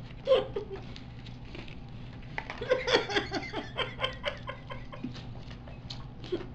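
Two people giggling and snickering with mouths full of bubble gum, in short bursts near the start and a busier stretch from about two and a half to four and a half seconds in, mixed with the crinkle of gum wrappers being torn open.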